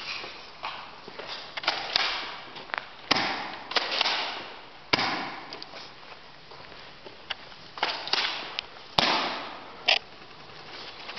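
Airsoft guns firing single sharp pops, about five at irregular intervals, amid rushing, scuffing noise of players moving.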